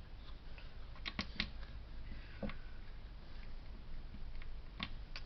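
Plastic Lego bricks clicking as they are handled and pressed together: a quick run of three clicks about a second in, then single clicks spaced out, over a low steady hum.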